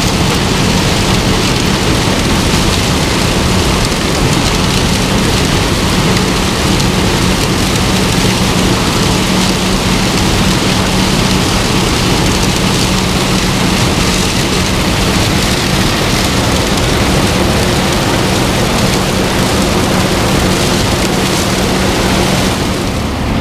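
Combine harvester running steadily while harvesting corn: a loud, even rush of machinery noise with a constant low hum underneath.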